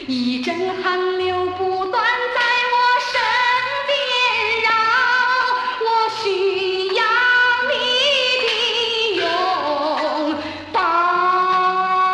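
Mandarin pop music played from a Life Records (麗風) vinyl LP: a melodic passage without transcribed lyrics, its wavering lead line over a bass line, with a short break in the sound about ten and a half seconds in.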